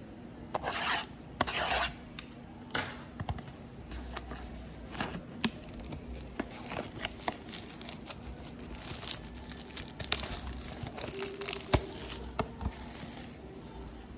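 Cellophane shrink wrap on a trading-card mega box being rubbed, scratched and torn open by hand, the plastic crinkling. Two longer rasping strokes come near the start, then many short scratches and clicks.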